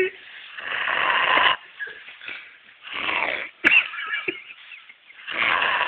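A drunk man snoring in his sleep: three long snores about two and a half seconds apart, the last starting near the end. A brief sharp click comes between the second and third.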